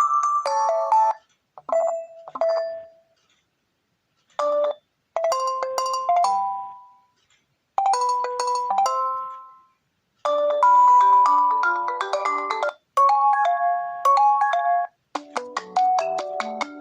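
Nokia 1.3 smartphone ringtones playing: short melodic phrases of bright electronic notes, broken by brief silences of up to about a second.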